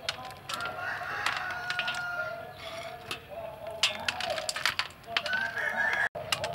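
A rooster crows in the background, a long held call about a second in and another near the end. Small sharp clicks come from about four seconds in, as peanuts are sprinkled onto the drumsticks and the metal tray.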